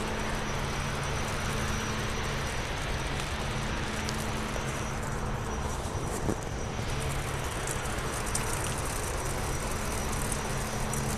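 Steady machinery hum with a wide, even rushing noise around it, from plant equipment, with one brief knock a little past the middle.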